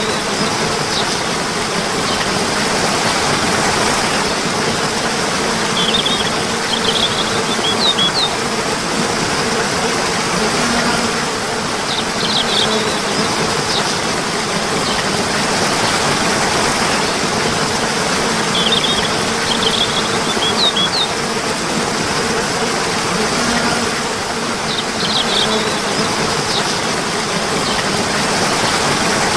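Running water with a steady rushing sound, and short groups of high, quick bird chirps that come back about every six seconds.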